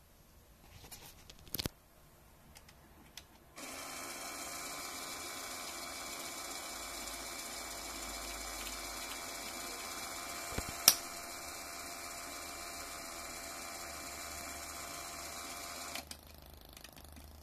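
Small electric motor, likely a LEGO Power Functions motor, switched on by the remote: it starts suddenly about three and a half seconds in, runs steadily with an even whine, and cuts off about sixteen seconds in. A sharp click, the loudest sound, comes near the eleven-second mark, with a fainter one early on.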